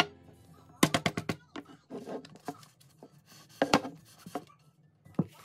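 Handling noise of a bamboo cutting board being slid across a tabletop: a quick cluster of light knocks and scrapes about a second in, another group near four seconds, and one more knock near the end.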